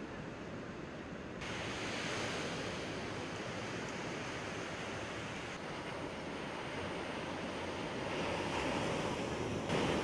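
Ocean surf breaking and washing onto a beach, a steady rushing noise with some wind on the microphone; it turns louder and brighter about a second and a half in.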